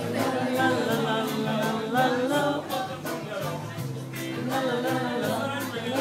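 Pop song playing over bar loudspeakers, with singing and a steady beat.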